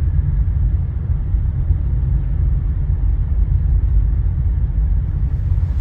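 Steady low rumble of a car ferry's engines and thrusters as the ship manoeuvres to line up with the landing ramp.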